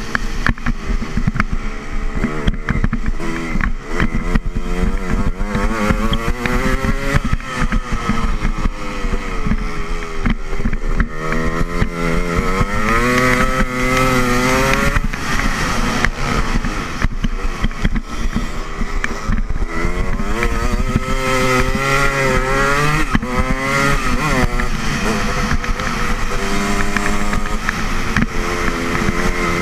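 Dirt bike engine heard from on board while racing, its pitch rising and falling again and again as the rider opens and closes the throttle, over a steady rush of wind noise.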